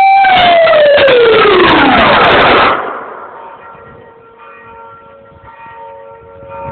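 Pole-mounted Dutch air-raid siren ending its test signal. A loud steady wail starts winding down about a quarter second in, its pitch falling for over two seconds, then it drops away abruptly about three seconds in. Fainter steady tones remain after it.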